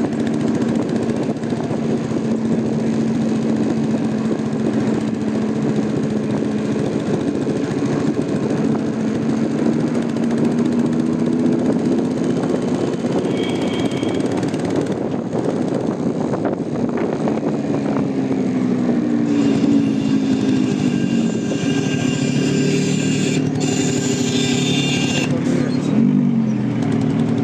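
A vehicle engine running steadily with a low hum, its pitch sliding down and back up a few times in the last third. A brief high tone sounds about halfway through.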